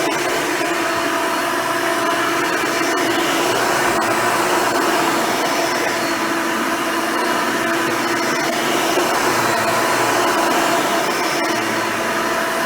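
Hoover Elite upright vacuum cleaner, with its original seven-bladed fan motor and a new-old-stock dual-row brush roll, running steadily: a constant rush of air with a steady motor whine over it.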